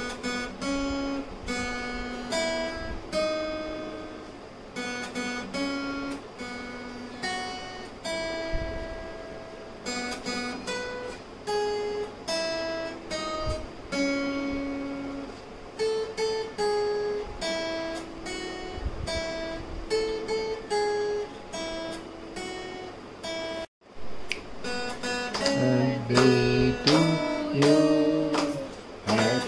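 Acoustic guitar played note by note as a slow melody, each plucked note ringing and fading. After a brief break near the end it turns to fuller, louder strummed chords.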